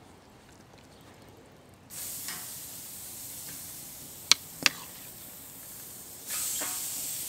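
Marinated flank steak sizzling as it hits a hot grill over an open wood fire. The hiss starts suddenly about two seconds in, two sharp clicks come in the middle, and it gets louder near the end as more steak goes on.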